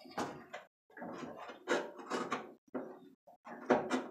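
Needle-nose pliers working a small sheet-metal patch strip straight against the edge of a VW Beetle deck lid: a string of irregular short metal scrapes and clicks.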